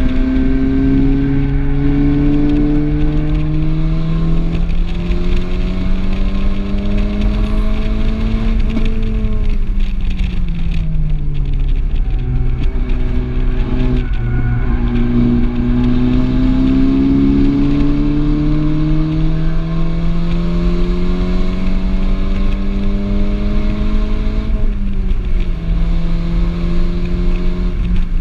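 Volkswagen Golf R's turbocharged four-cylinder engine heard from inside the cabin under hard track driving, over steady tyre and wind noise. The engine note climbs steadily, steps down at an upshift about five seconds in and climbs again. It then falls away as the car slows for a few seconds, and climbs through a long pull with another upshift near the end.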